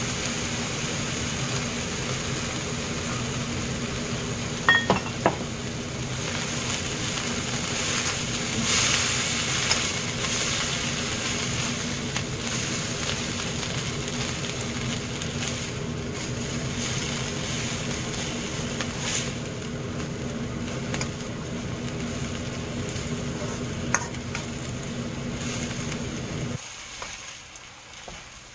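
Bracken fern stems sizzling in oil as they are stir-fried in a nonstick wok and tossed with a wooden spatula, with a few sharp clicks of the spatula against the pan, a cluster of them about five seconds in and one near the end. A steady low hum under the frying cuts off shortly before the end.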